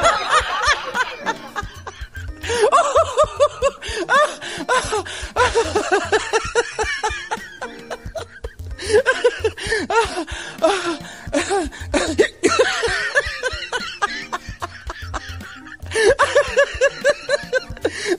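People laughing in several long bursts of quick repeated 'ha' pulses, with brief pauses between them, over background music.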